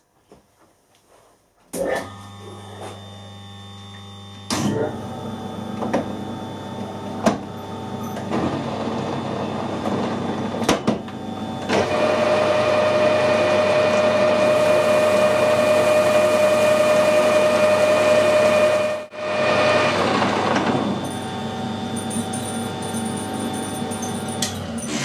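Harrison metal lathe starting up and running, the spindle and gearbox giving a steady mechanical hum with a few sharp clicks in the first half. It gets louder, with a steady high whine, until a sudden brief dip about three-quarters through, then runs on more quietly and stops just before the end.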